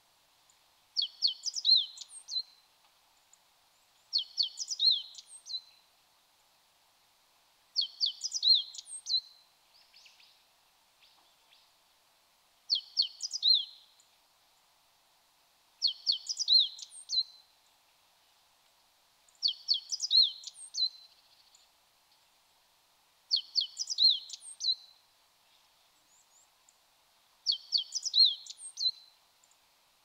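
Male meadow bunting singing its spring song: a quick phrase of high, tumbling notes about one and a half seconds long, repeated eight times, a few seconds apart. A few faint chirps from another bird come between phrases about ten seconds in.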